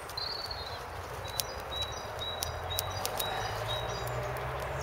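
Small campfire of birch kindling burning, with scattered sharp crackles and pops. A bird chirps high and thin in the background.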